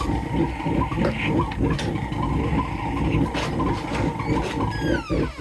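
Fired smelting furnace running with a steady, fluttering rumble. Just before the end, a few short high squeaks glide downward.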